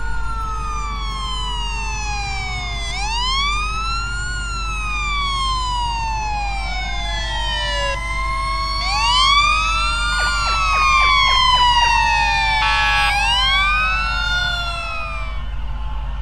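Several fire truck sirens wailing at once, each rising and falling slowly and overlapping one another. A short horn blast comes about thirteen seconds in, over a steady low rumble.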